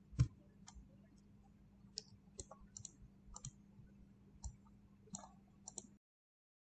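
Computer mouse clicking: about a dozen short, sharp clicks at uneven intervals, the loudest just after the start, over a faint steady hum. The sound cuts off suddenly about six seconds in.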